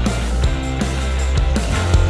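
Background rock music with distorted guitar, a steady bass line and a regular drum beat.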